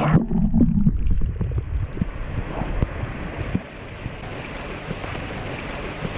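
Muffled water noise heard through a submerged camera: a louder low rumble of sloshing water in the first second, then a steady dull wash with a few faint soft knocks.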